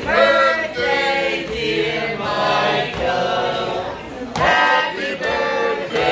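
Several voices singing together in one continuous sung melody.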